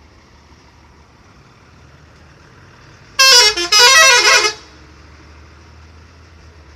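Telolet musical horn on an angkot minibus, playing a quick run of changing tones that step up and down for about a second and a half, with a short break after the first note.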